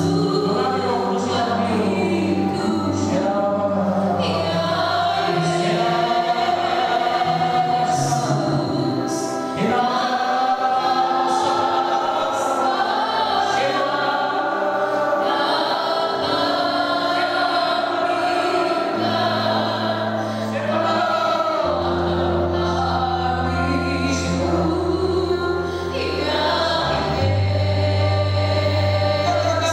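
Christian worship music: many voices singing together over long-held low bass notes that change every few seconds.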